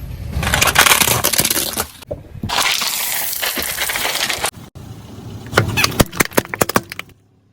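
Objects being crushed under a car tyre in a few short cut-together takes: two long stretches of dense crackling and crunching, then a run of separate sharp cracks and snaps near the end.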